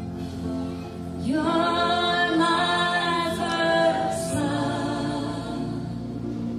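Slow worship music: sustained chords from keyboard and bowed cello, with a voice sliding up into a long sung phrase about a second in and holding it for about three seconds before the held chords carry on alone.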